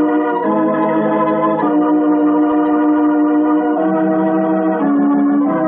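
Organ bridge music marking a scene change in a radio drama: a run of held chords, each sustained for one to two seconds before shifting to the next.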